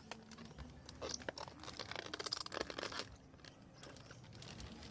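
Clear plastic bag of milkfish fry crinkling and crackling as hands work it in a basin of water, with a run of small crackles about one to three seconds in.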